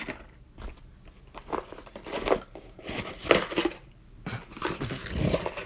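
Box of fishing tackle being opened by hand: irregular rustling and crinkling of packaging, loudest about two and three seconds in.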